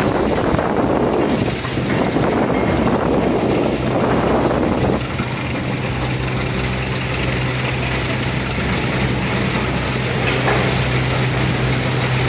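A sawdust-extraction system running: a motor-driven blower giving a steady low hum under rushing air. The rushing is heavier for the first five seconds or so, then settles, and the hum becomes more prominent.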